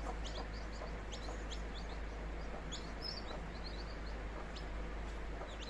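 Newly hatched country chicken chicks peeping: short high-pitched cheeps, a few a second, over a steady low hum.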